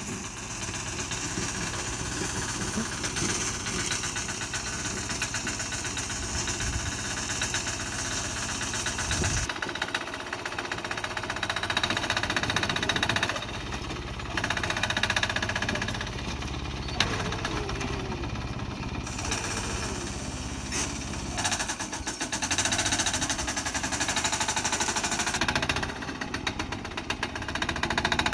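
Small 6 hp single-cylinder air-cooled diesel engine on a Sears garden tractor running with a rapid, hard knocking beat, getting louder and quieter by turns as the tractor plows snow.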